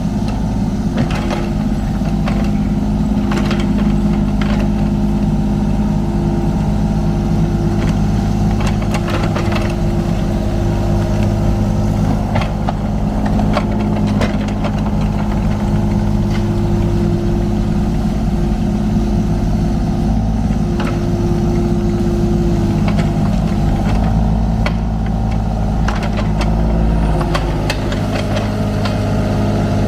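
Kubota U35-4 mini excavator's diesel engine running steadily as it works, with scattered knocks and clanks from the bucket moving dirt and rock. The engine note dips slightly near the end.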